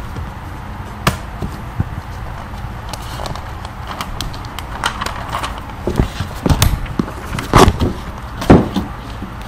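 Handling noise from a hand-held recording device being moved about: a sharp click about a second in, then a cluster of heavier knocks and thumps over the last few seconds.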